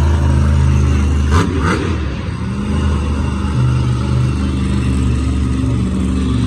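Monster truck's supercharged V8 engine running loud and steady, with a quick change in revs about a second and a half in.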